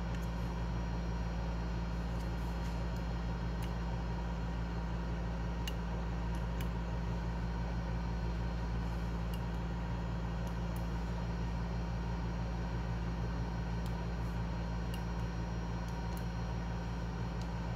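Steady low mechanical hum with a constant level, with a few faint, light clicks scattered through it.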